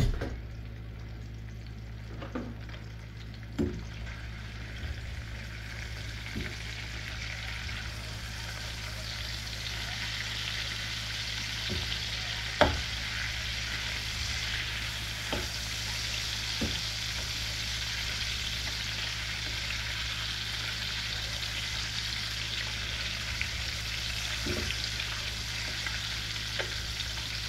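Peeled hard-boiled eggs frying in hot oil in a pan. The sizzle grows louder and busier over the first several seconds and then holds steady. Scattered knocks sound through it, the sharpest about halfway through.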